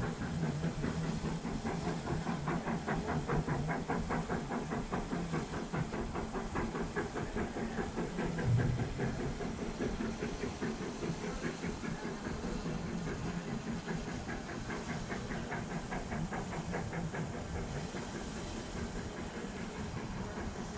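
Narrow-gauge steam locomotive working, a fast even chuffing over a steady hiss. The beats fade away about halfway through, leaving the hiss. A brief low thump comes about eight seconds in.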